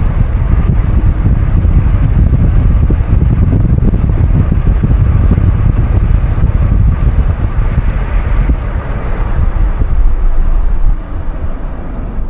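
Loud low rumble of wind buffeting the microphone over the road noise of a moving car, dropping somewhat near the end.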